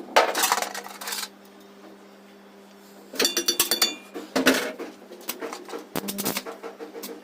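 Steel tools and parts clanking and clinking as they are handled, in several separate knocks with a ringing metal clink about three seconds in, over a steady machine hum.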